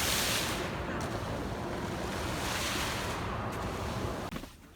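Steady rushing noise, like air blowing across the microphone, swelling twice and cutting off sharply near the end.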